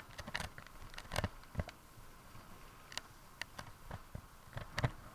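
Mountain bike descending a rough, leaf-covered dirt trail: irregular clicks, rattles and knocks from the bike and its tyres jolting over roots and stones.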